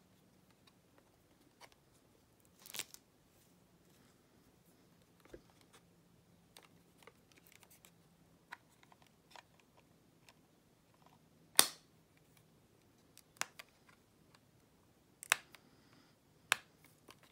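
Hands handling a glossy plastic wireless-earbud charging case, with scattered light clicks and taps. The sharpest click comes about two thirds of the way through, and a few more follow near the end.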